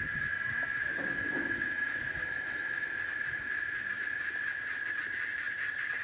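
Steady high-pitched buzzing drone of insects on a single note, with a few faint high chirps about one to two and a half seconds in.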